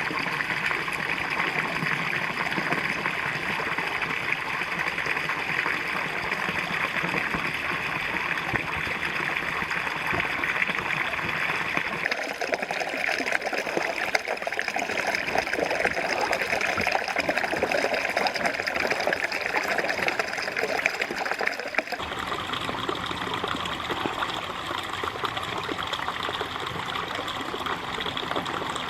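A small shallow brook babbling, a steady rush of running water. Its sound changes abruptly twice, about twelve and twenty-two seconds in, as the recording cuts to other spots along the stream.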